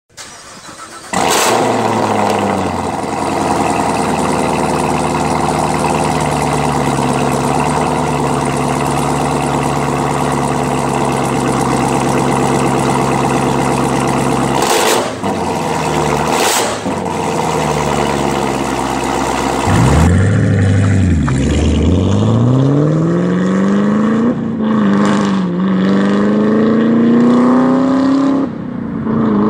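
Gen6 Chevrolet Camaro ZL1's supercharged 6.2-litre V8 through an AWE non-resonated Track Edition cat-back exhaust. It starts about a second in, its idle settles and runs steady, and it is blipped twice. Then, in a separate recording, the car accelerates hard towards the listener, its pitch climbing and dipping at each upshift.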